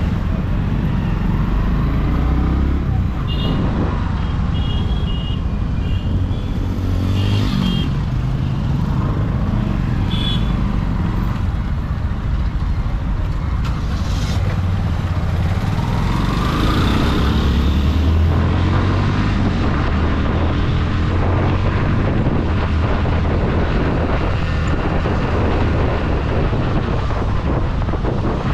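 Bajaj Pulsar NS motorcycle running steadily while being ridden through traffic, its engine and road noise continuous, with a rise in engine pitch about two-thirds of the way through. A few short high beeps like vehicle horns sound in the first ten seconds.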